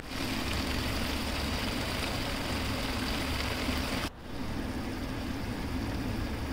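Chicken pieces sizzling and bubbling in butter and sauce in a karahi on the stove: a steady frying hiss with a low hum under it. It cuts out for an instant about four seconds in.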